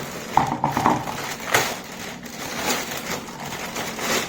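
Packing material rustling and crinkling, with a few sharp knocks, as the pedestal fan's base is taken out of its packaging.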